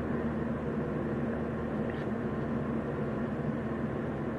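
Steady low hum with an even background hiss that does not change.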